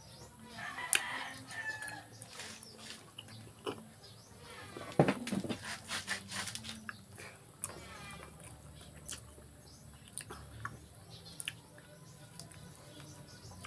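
Close eating sounds as a man chews and handles food by hand, with scattered clicks and a louder cluster about five seconds in. Chickens cluck in the background, and faint music plays underneath.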